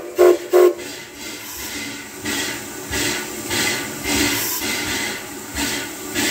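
Steam locomotive No. 81, a 2-8-0, gives short toots on its steam whistle at the very start. After that comes a steady hiss of steam with a regular beat about every two thirds of a second.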